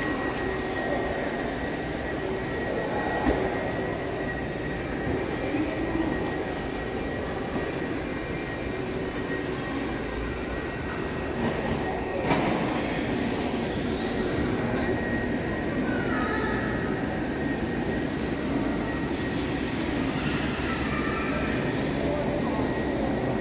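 Crowd ambience in a large echoing mall hall: a steady murmur of voices and background noise with a thin constant high whine. About two-thirds of the way through, another high tone glides up and then holds.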